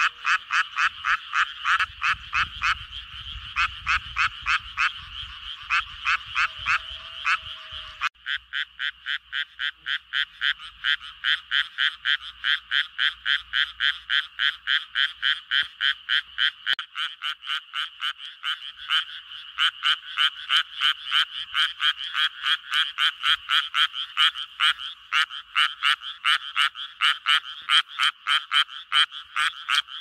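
Male Japanese tree frogs giving their mating call in a chorus: a steady run of short, quickly repeated notes, about three a second, the frogs following one another's calls.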